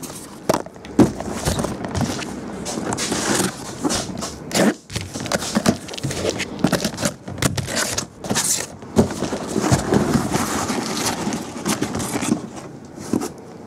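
2012 Topps Tribute hobby boxes being pulled out of their cardboard shipping case and stacked on a table: cardboard scraping and rustling, broken by many sharp knocks as boxes are set down.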